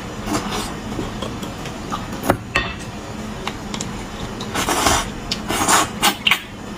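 Close-miked wet sucking and slurping as marrow is sucked out of a roasted marrow bone held to the mouth, with a couple of sharp clicks about two and a half seconds in and longer slurps near the end.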